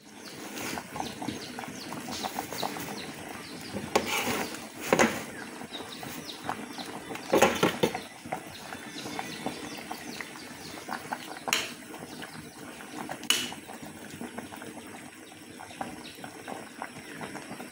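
Pot of fish tinola soup boiling, with a steady bubbling crackle and a few louder rustles and knocks as moringa leaves go into the pot.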